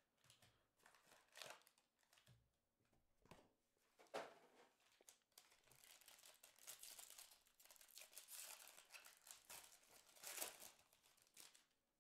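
Faint crinkling and tearing of Donruss Basketball foil pack wrappers being handled and ripped open, in irregular rustles that grow busier in the second half, with a louder burst about ten and a half seconds in.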